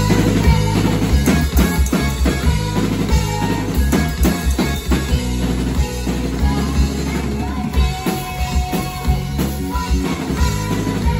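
Small rock band playing live: drum kit and electric keyboard, with a girl singing lead.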